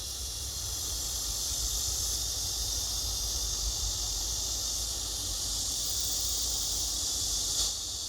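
Steady high-pitched insect chorus buzzing continuously, with a low wind rumble on the microphone underneath.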